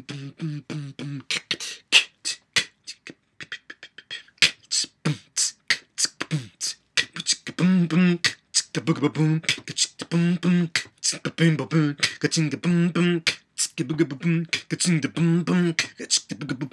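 A man beatboxing: a fast, rhythmic run of sharp mouth clicks and hits. From about halfway through, short pulses of a hummed voice tone join in under the beat.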